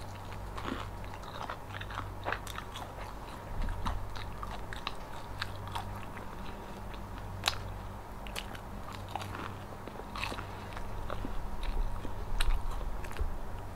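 Close-miked eating: crunchy bites and chewing of crisp food, heard as many irregular short crunches and mouth clicks.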